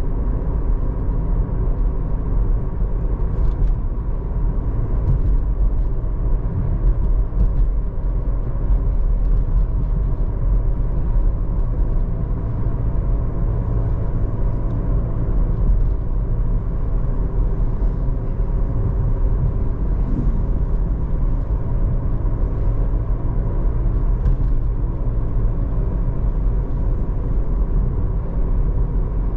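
Suzuki Lapin driving at road speed: a steady low rumble of tyre and road noise.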